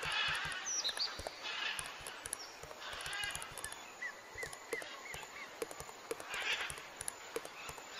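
Animal and bird calls: short chirping calls and hazier honk-like calls, over a faint background.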